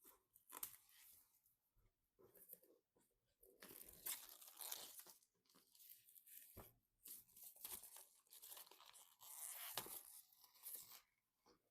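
Packaging being handled and torn open, with crinkling and rustling in uneven stretches and a few small clicks. The loudest stretches come about a third of the way in and again over most of the second half.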